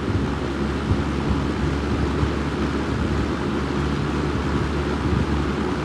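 Windsor C-14 box fan with a GE motor running on medium speed: a steady rush of air.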